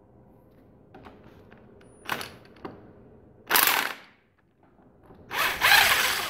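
Three short bursts of a power tool, each longer than the last, the loudest near the end, with small clicks and knocks between them.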